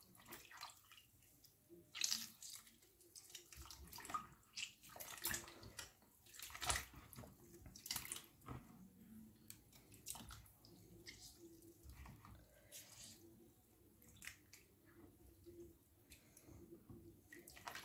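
A hand squeezing and kneading lemon and lime pieces under water in a plastic bowl: faint sloshing with a few short, sharper splashes.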